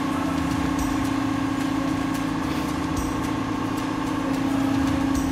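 Excavator diesel engine running steadily at a constant speed, a continuous hum with no revving.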